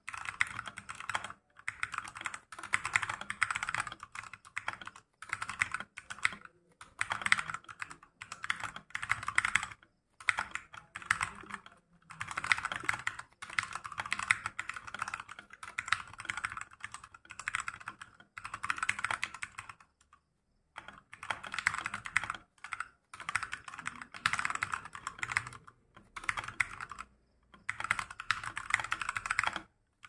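Fast touch-typing on a Redragon K617 Fizz 61-key mechanical keyboard with Outemu Red linear switches, at around 85 words a minute: a dense clatter of keystrokes in runs of a few seconds, broken by brief pauses, the longest about twenty seconds in.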